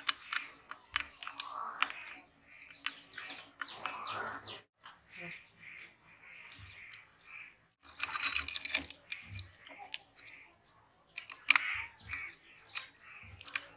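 Pliers and a metal tool clicking and scraping against the metal end cap and shaft of a sewing machine motor as it is taken apart, with a longer, louder scrape about eight seconds in. Birds chirp in the background.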